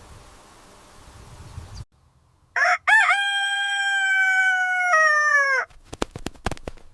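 A rooster crowing: a short opening note, then one long crow that steps down in pitch near its end and trails off. Steady outdoor background noise cuts off abruptly before it, and a few sharp clicks follow.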